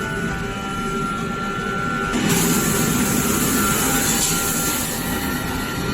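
Steady machine noise from a tire changer at work dismounting a tire from its rim, with a thin steady whine that stops about two seconds in, after which the noise gets louder with an added hiss.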